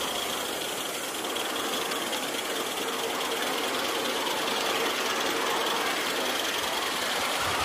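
LBSC 2.5-inch gauge Ayesha miniature live steam locomotive running along the track: a steady hiss of steam with its wheels rolling on the rails.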